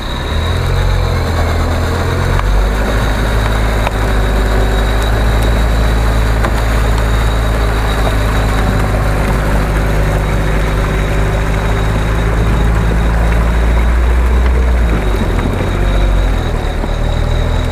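Toyota Land Cruiser 70-series engine running at low revs as the truck crawls forward through deep mud. It is a steady low drone that steps up in pitch a couple of seconds in and shifts again near the end.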